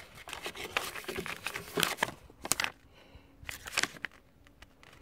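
Glossy paper brochures and a card rustling and flicking as they are handled, a series of short crackles that thin out toward the end.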